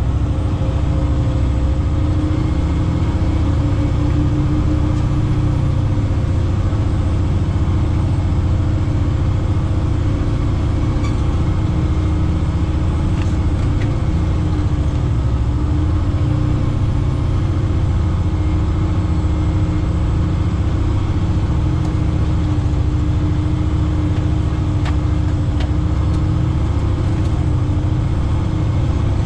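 Heavy truck's diesel engine running steadily, a low continuous rumble with a steady hum above it.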